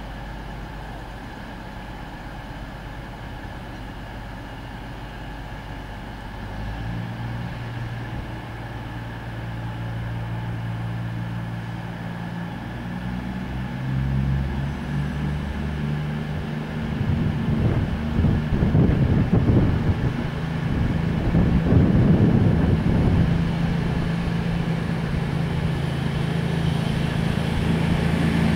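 CrossCountry Class 220 Voyager diesel-electric multiple unit pulling away from a station, its underfloor Cummins diesel engines under power. The engine note steps up in pitch a few times and grows louder as the train approaches, with a rougher, louder stretch about two-thirds of the way in.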